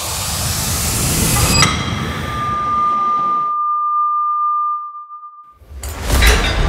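Edited sound-effect transition: a rising whooshing swell builds to a sharp hit about one and a half seconds in, then fades. It leaves a single high steady tone held alone for about three seconds, which cuts off. Near the end comes a heavy thud with metallic clinking, like barbell weight plates.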